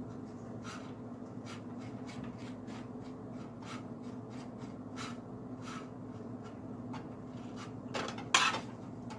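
Butter crackling in a hot skillet under cooking waffles, with scattered sharp pops over a steady low hum. A louder scraping rustle comes near the end.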